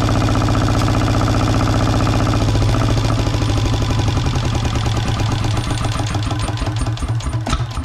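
Volvo Penta 2001 single-cylinder marine diesel running, throttled back about two and a half seconds in to a slower idle whose separate firing beats come through unevenly.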